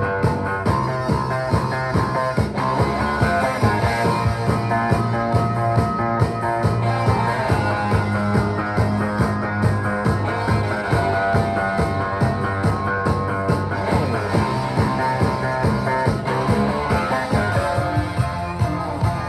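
A song with a steady beat playing from a vinyl LP on a Garrard AT-60 automatic turntable, heard through a pair of bookshelf speakers in the room.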